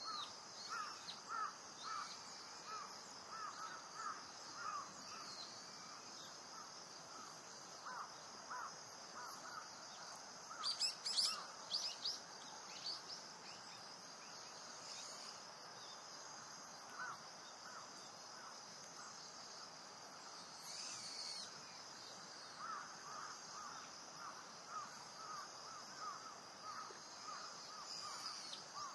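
Wild outdoor ambience: a steady high insect hum under a run of short repeated calls, with a brief flurry of high bird chirps about eleven seconds in, the loudest sound.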